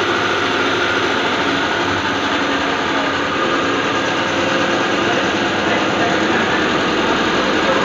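Diesel fuel injection pump test bench running steadily, driving an old Belarus tractor's inline high-pressure fuel pump on test.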